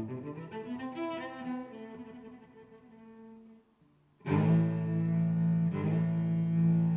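Background music with long held notes. It fades away about three and a half seconds in, and after a brief silence a louder passage of sustained low notes begins about four seconds in.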